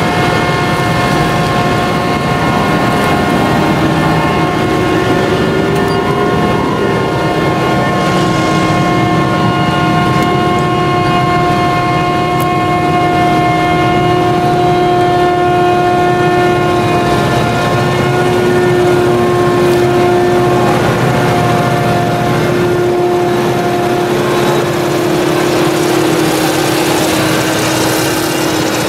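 Claas Jaguar 970 forage harvester's MAN V8 engine running steadily under load while it chops sorghum. A low drone carries a steady whine of several pitches on top.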